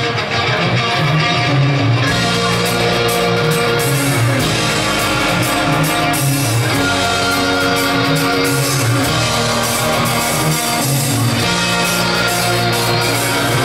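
Loud rock music with guitar, its chords changing every second or two.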